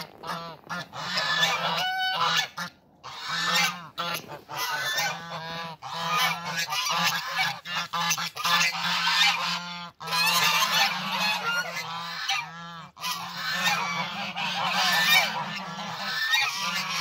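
A flock of domestic geese honking and calling over one another, many voices at once, with a few short breaks: the loud clamour of breeding season.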